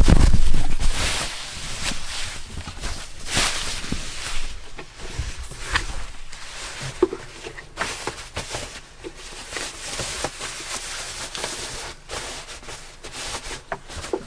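Cardboard box and packing inserts scraping and rustling as a large speaker is worked out of its packaging, with a heavy thump right at the start and many short knocks throughout.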